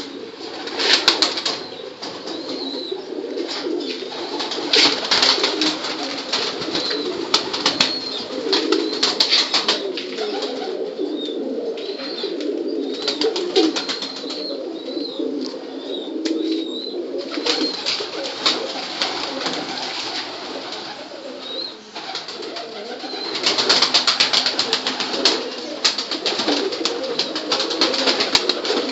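A loft full of desi high-flyer pigeons cooing together in a steady low chorus, with bursts of rustling and a few thin high chirps mixed in.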